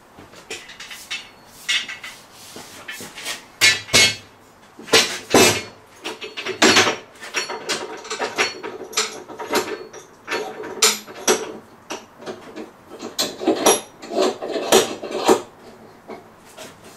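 Irregular sharp knocks and metallic clanks, some ringing briefly, as steel sash clamps are adjusted and tightened across a large glued-up panel of scaffold boards that is trying to cup.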